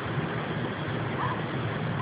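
Steady low drone with a rushing background, like a mix of airplane and helicopter; its source is unexplained. A faint short chirp is heard about a second in.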